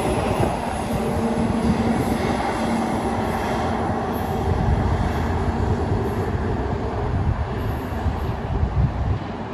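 A commuter train running past with a steady rumble and a low steady hum, easing off near the end.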